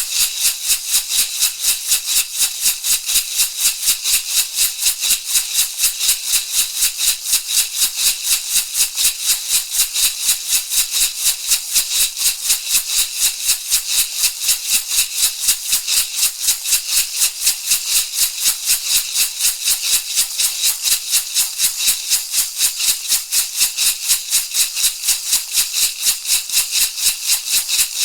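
Shamanic rattle shaken in a steady, even rhythm, about three shakes a second, with a bright, seed-like rustle on each stroke.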